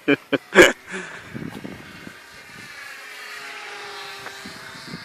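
Motor and propeller of a radio-controlled Cessna 182 model airplane in flight, a steady pitched drone that sags in pitch and then climbs again. A few sharp knocks sound in the first second.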